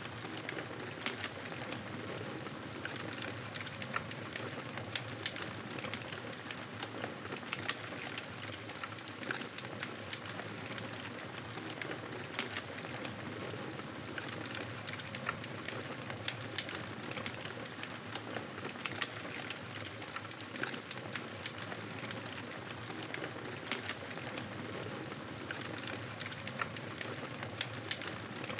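Campfire burning with steady crackling: frequent sharp pops and snaps scattered over a continuous soft hiss.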